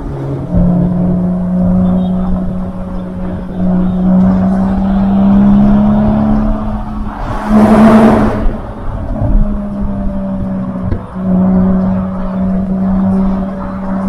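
Porsche 981 Boxster flat-six running through a Top Speed Pro 1 cat-back exhaust at highway cruising speed, heard from the open-top cabin with wind and road noise. The exhaust drone holds a steady pitch that climbs slowly and breaks off briefly twice, and a short rush of noise cuts in about eight seconds in.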